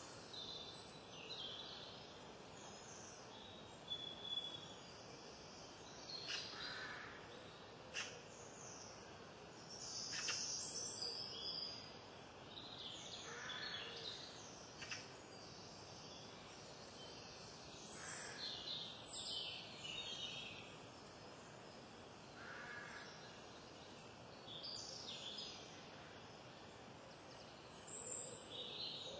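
Faint outdoor ambience with scattered bird calls and a few sharp clicks and light knocks as vegetables are handled and cut on a wooden cutting board.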